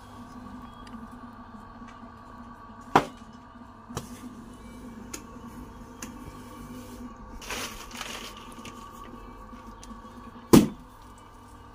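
Lumps of wet clay slapped down hard onto a potter's wheel head: a sharp thud about three seconds in, a lighter knock a second later, and the loudest, deepest thud near the end, over a steady low hum. A brief rustle comes midway.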